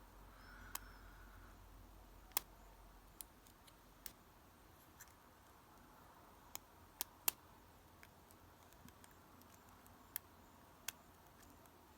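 Lock pick and tension wrench working in a pin tumbler lock: sparse, sharp metallic clicks at irregular intervals, about ten of them, over a very quiet background.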